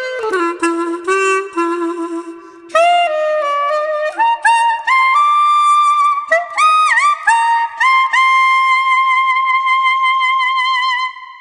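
Solo wind instrument played through a Zafiro Plus mouthpiece, with no accompaniment: a run of quick notes, then a climbing phrase with one bent note, ending on a long high note held with vibrato that fades out.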